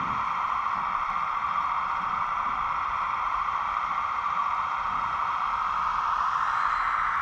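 Hydraulic pump of a 1:15 scale RC mini excavator running with a steady whine-like hiss while the boom and arm are worked.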